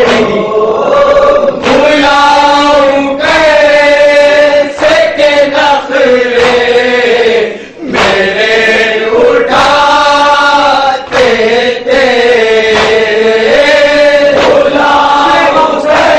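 Male voices chanting a nauha, an Urdu Shia lament, in drawn-out melodic phrases with short breaks between them.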